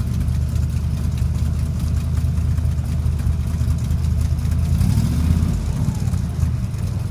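Chevy V8 in a Dax Cobra kit car running steadily at idle on its first start-up, with a slight rise in level about five seconds in.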